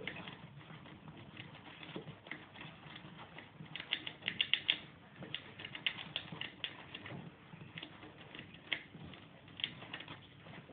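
Gerbils shifting in wood-shaving bedding: soft rustling with scattered small clicks, thickening into a quick run of clicks about halfway through.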